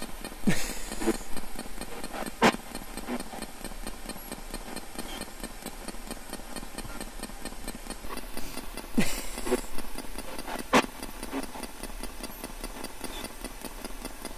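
Spirit box sweeping through radio static: a steady hiss with an even ticking, broken by brief garbled fragments about half a second in and again about nine seconds in, each followed by a sharp click. The ghost hunters take the fragments for a spirit saying "I'm safe".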